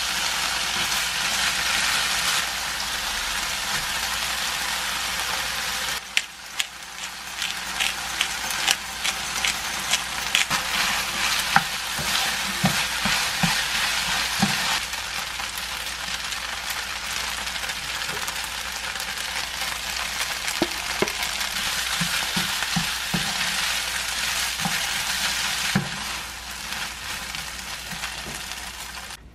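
Cabbage, onion and chicken-breast sundae sizzling in a nonstick frying pan as they are stir-fried with a spatula, with scattered taps and scrapes of the spatula against the pan. The sizzle dips briefly about six seconds in.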